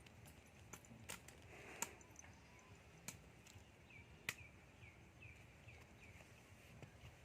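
Near silence, with a few faint scattered clicks and, past the middle, a short run of faint repeated chirps.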